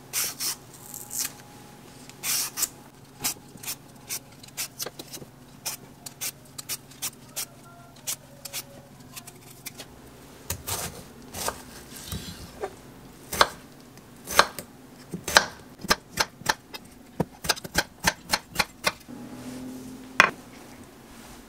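Y-peeler scraping strips of rind off a Korean melon, then a kitchen knife slicing through the peeled melon and knocking on a wooden end-grain cutting board in a run of sharp taps, thickest and loudest in the second half.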